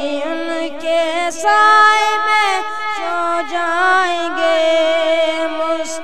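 A boy singing an Urdu naat through a microphone, one drawn-out line without clear words, the pitch sliding and wavering between held notes.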